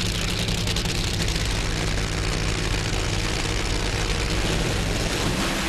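Nitro-methane Funny Car drag racing engines running, a loud, steady wall of noise with a low drone.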